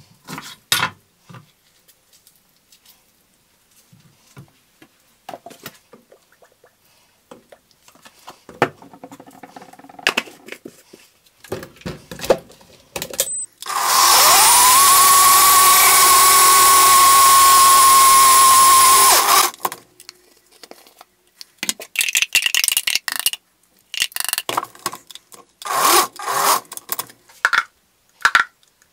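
Hands handling floury pasta dough on a worktop, rubbing and patting, then a string of sharp knocks from a kitchen knife and the dough on a wooden chopping board as the dough is cut into tagliatelle. In the middle, a loud electric motor spins up, runs steadily at one pitch for about five seconds and stops.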